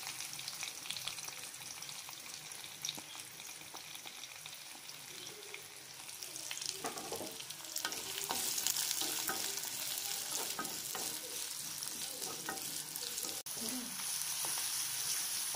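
Chopped onions sizzling as they sauté in hot oil in a clay pot, with a spoon scraping and stirring them. The sizzle grows louder about halfway through.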